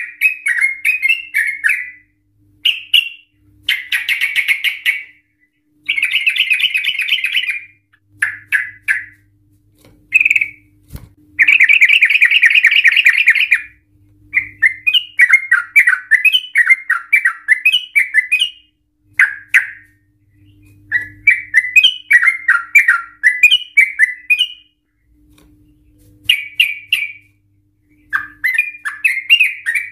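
Yellow-vented bulbul (trucukan) singing: loud, bubbly warbling phrases broken by long, rapid rattling trills (the 'ropel'), the longest lasting about two seconds near the middle, with brief pauses between phrases.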